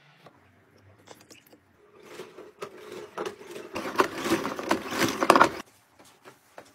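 Flat mop head worked back and forth in a plastic mop bucket's cleaning slot: a wet scraping and rubbing from about two seconds in that stops suddenly near the end.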